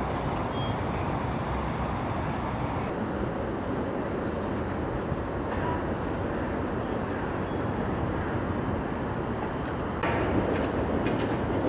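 Steady rumble of city traffic, a continuous even hum with no distinct events, getting a little louder near the end.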